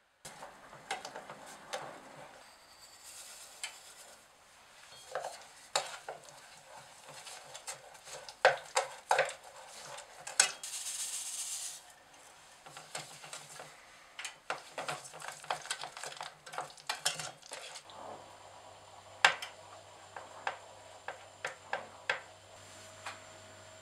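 A plastic spatula stirring thick strawberry puree in a stainless steel pot, with repeated clicks and knocks against the pot and wet scraping. About ten seconds in, a short hiss of sugar pouring in from a glass.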